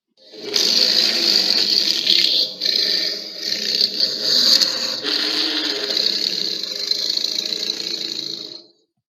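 A harsh, grating monster sound effect for a Godzilla-style kaiju, lasting about eight seconds and fading out near the end.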